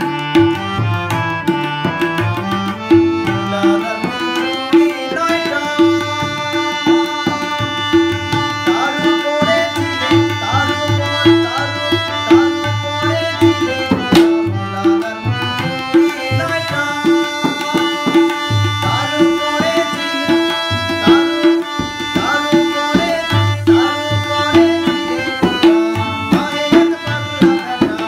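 Hand-pumped harmonium playing a melody in sustained reedy notes while tabla keep a steady, regular beat.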